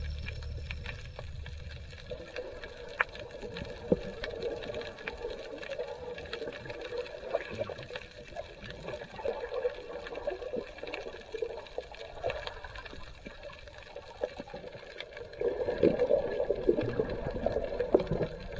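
Underwater sound heard through a camera housing while diving on a reef: a muffled wash of moving water with many scattered clicks and crackles, louder for the last few seconds.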